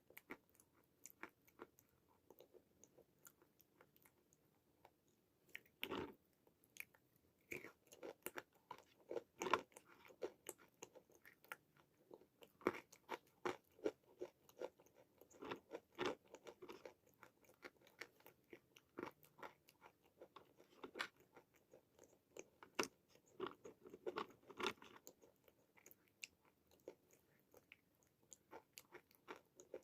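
Close-up crunching and chewing of dry white khadi chalk: irregular sharp crackling bites and chews, a few of them much louder than the rest.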